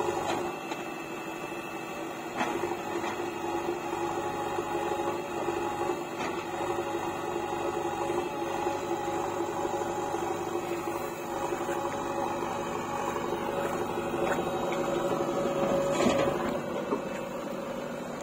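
JCB backhoe loader's diesel engine running steadily with a droning hum while the excavator arm works, with a brief knock about two seconds in and another near the end.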